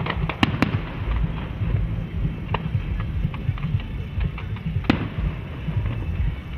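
Fireworks shells bursting: sharp bangs, several in the first second and one more about five seconds in, with scattered small crackles between, over a continuous low rumble.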